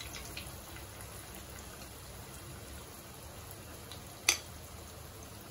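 Urad dal bhallas frying in hot oil in a stainless steel kadai, giving a steady, even sizzle. About four seconds in there is one sharp click.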